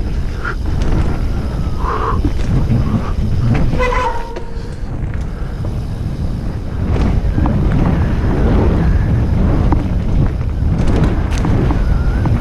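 Wind buffeting a helmet-mounted action camera's microphone while riding a mountain bike fast down a dirt trail, with scattered clicks and rattles from the bike over the ground. A few short squeaks come in the first four seconds, and the rumble eases briefly before growing louder again about seven seconds in.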